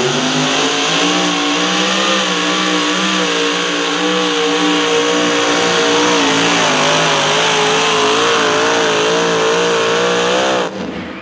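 Supercharged engine of a super modified two-wheel-drive pulling truck running flat out under load as it drags the weight sled, its pitch climbing at the launch and then holding high with a slight waver. The engine cuts off abruptly near the end as the pull finishes.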